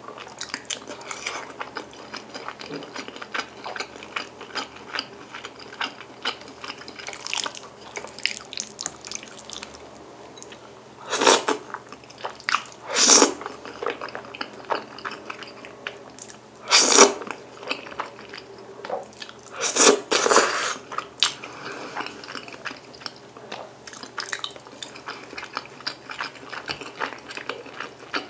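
Close-miked eating: wet chewing and lip smacking of saucy rosé fettuccine and meatballs, with about five loud slurps of fettuccine noodles in the middle.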